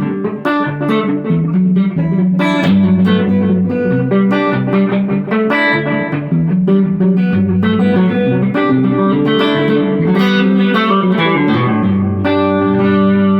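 Electric Telecaster with Dynasonic pickups played through a Krinard-modified Bell & Howell Filmosound amplifier with EL84 valves: a continuous run of picked notes and chords, a clean, chimey valve tone.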